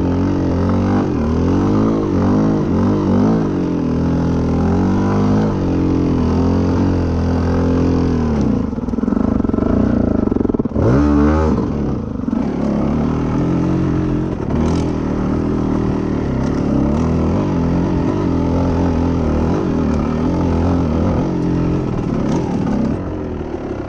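GasGas 250 enduro motorcycle engine running under way, its pitch rising and falling again and again with the throttle, with one sharp, high rev about eleven seconds in. It gets quieter near the end.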